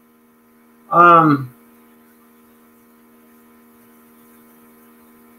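A man's single short hesitant vocal sound, falling in pitch, about a second in, then a faint steady electrical hum made of several steady tones.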